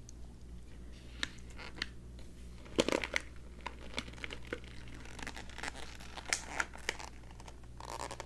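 Paper-and-foil bag of whole-bean coffee crinkling as it is handled and lifted into place: scattered crackles, a loud rustle about three seconds in, and denser crinkling in the second half.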